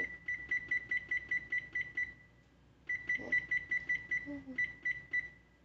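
Frigidaire oven control panel beeping once for each step as a cook time is set: short, identical high beeps at about five a second, in two runs with a short pause about two seconds in.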